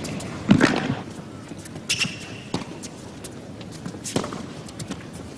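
Tennis rally: a series of sharp ball strikes off rackets and ball bounces, one every second or two, the loudest about half a second in. A brief squeak comes about two seconds in.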